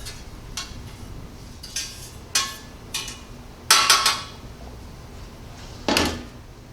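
Metal ignition-furnace baskets and pan clanking and scraping as burned aggregate is knocked out of the baskets into the bottom pan. It comes as a series of ringing metallic clinks, with the loudest clatter about four seconds in and another near six seconds.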